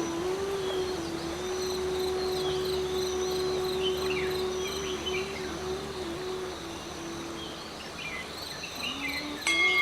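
Insects chirping steadily, with scattered short bird calls and a steady wavering low hum underneath. Near the end a sudden steady higher tone comes in.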